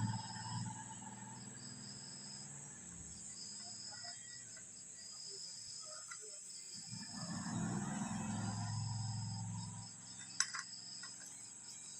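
Crickets chirping steadily in the background, a high trill with repeating chirps. A low hum swells up around the middle, and two sharp clicks come near the end.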